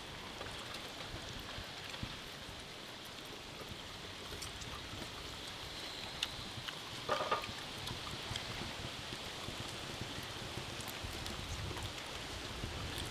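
Quiet outdoor ambience: a steady high hiss with scattered small clicks and rustles, and one brief pitched sound about seven seconds in.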